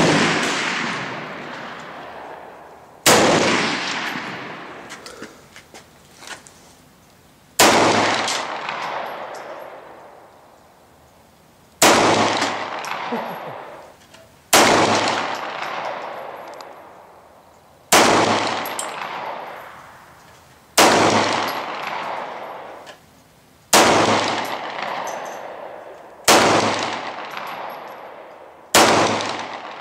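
Nine single gunshots a few seconds apart, each a sharp crack followed by a long echo that dies away over two to three seconds. Most of them come from a semi-automatic pistol.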